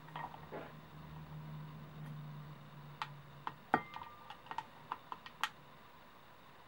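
Small sharp clicks and taps as metal clock hands are pressed onto the shaft of a quartz clock movement against a glazed ceramic clock face, about eight in the second half, one with a brief ring.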